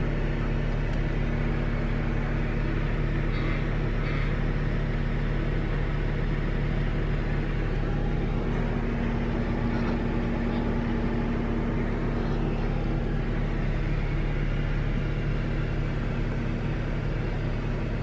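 Car engine idling steadily, heard from inside the cabin.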